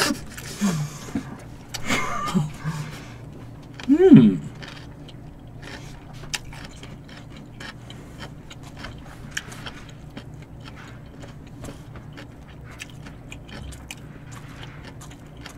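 Quiet eating sounds: faint, scattered small clicks of chewing and chopsticks on food, over a steady low hum. About four seconds in, a short hummed 'mm' that rises and falls in pitch.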